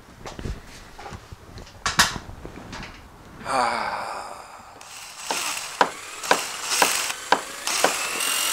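A sharp knock, then a man's long sigh as he leans back against an aluminium stepladder, followed by a run of ratcheting mechanical clicks, about two a second, with faint rising tones.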